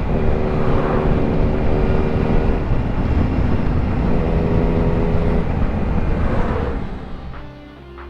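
Yamaha MT sport motorcycle engine running at cruising speed, with heavy wind rush on the rider's microphone; it quietens about seven seconds in as the bike slows.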